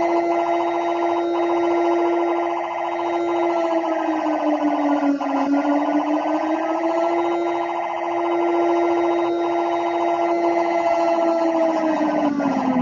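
Mock emergency-alert alarm siren holding one steady, fairly low pitch, sagging slightly a few times, then winding down in pitch near the end.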